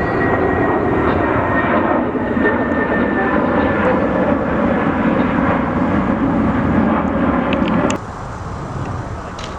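Jet airliner's engines running loud and steady, with a faint high whine that fades out over the first couple of seconds. The noise drops off suddenly about eight seconds in, leaving a quieter background.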